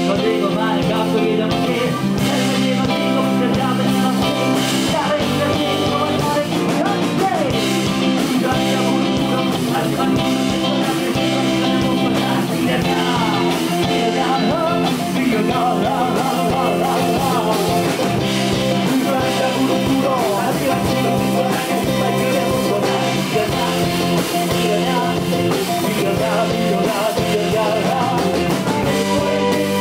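Live band playing a blues-rock groove on electric guitars, bass guitar and drum kit, with a rapper's vocal over it.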